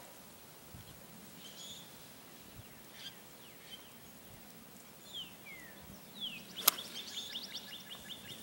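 A single sharp crack of a golf club striking a teed-up ball, a bit over two-thirds of the way through, over outdoor quiet with birds calling: a couple of falling whistled notes, then a quick run of repeated chirps.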